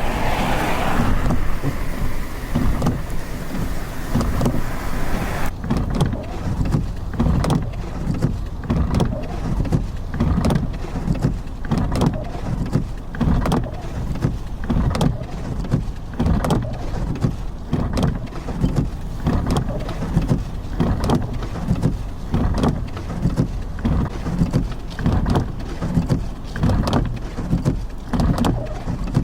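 Strong blizzard wind buffeting the microphone in a constant low rumble, with a hissing rush for the first few seconds. After that come repeated short, sharp scraping or crunching noises, about one or two a second.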